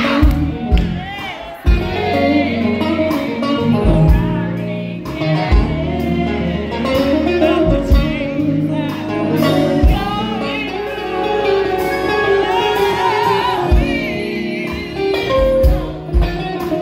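A live band playing: a guitar lead with bending, wavering notes over bass guitar, drums and keyboard, with drum hits coming at a steady beat.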